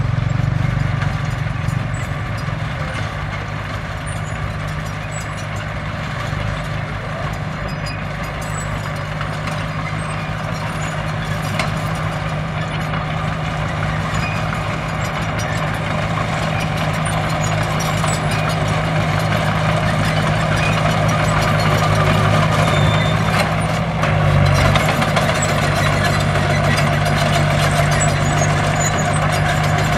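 Heavy construction machine's engine running steadily, its speed dipping briefly and picking back up about three-quarters of the way in.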